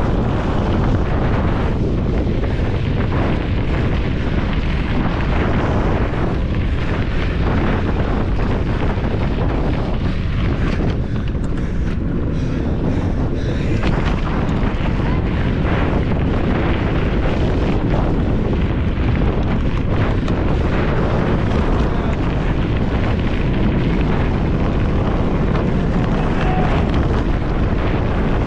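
Steady wind rush buffeting the microphone of a camera on a mountain bike ridden on a cross-country trail, mixed with many short jolts and rattles as the bike bounces over rough ground.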